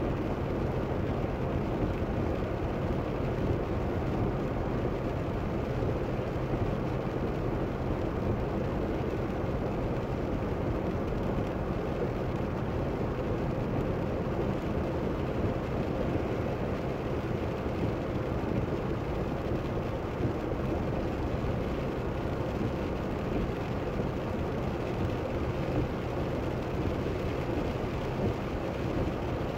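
Steady road noise from inside a car driving on a wet highway: tyres running on wet pavement and the engine, heard through the cabin as a constant low rumble.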